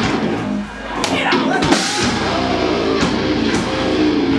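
Live heavy rock band playing: loud distorted electric guitar chords over bass, with a brief drop in loudness just under a second in.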